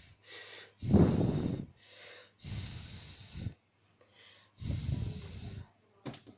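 A person's heavy breaths close to the microphone: three loud, rushing exhales about two seconds apart, with softer breaths between them. A couple of sharp clicks come near the end.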